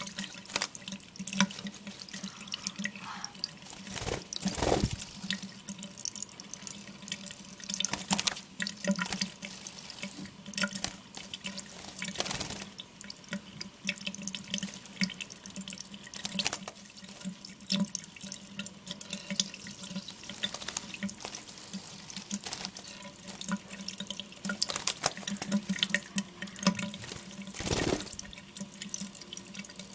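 Tap water running into a sink, with irregular splashes and flutters from a small pet bird bathing in the water, a few of them bigger splashes. A steady low hum runs under the water.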